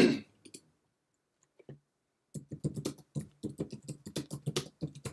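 Typing on a computer keyboard: a quick run of key clicks beginning about two and a half seconds in.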